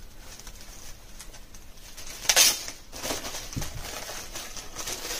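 Packaging rustling and crinkling as a new leather binder is unwrapped, with a louder rustle about two seconds in and a soft knock shortly after.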